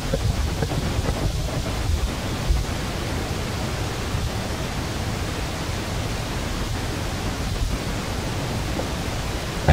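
Steady noise hiss with a gusting low rumble, typical of wind buffeting the microphone, with a few faint ticks.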